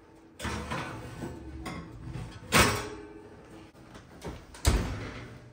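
Oven door and rack clattering as a cast iron griddle is put into the oven to season: three metal knocks with some scraping between them, the loudest about two and a half seconds in.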